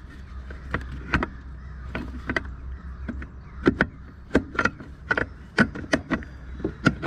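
Hand tools working in a car's engine bay: a string of irregular sharp metallic clicks and knocks, coming faster and louder in the second half, over a steady low hum.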